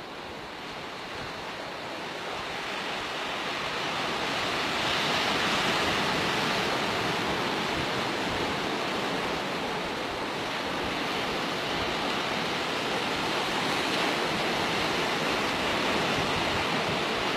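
Sea waves washing in: a steady rush of surf that builds over the first few seconds and then holds.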